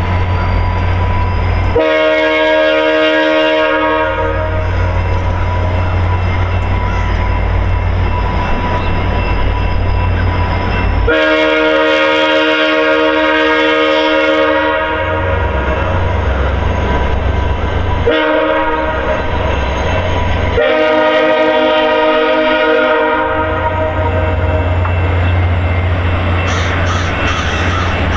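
A VIA Rail F40PH-2 diesel locomotive's air horn blowing four blasts, long, long, short, long: the signal for a grade crossing as the train leaves the station. Under and between the blasts the diesel engine rumbles steadily and the coaches roll along the rails.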